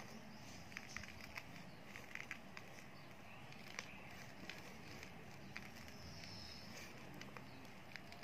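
Faint, scattered light clicks and taps as small pieces of slate pencil and edible roasted clay are set down and nudged into place on a notebook cover, over a steady low hiss.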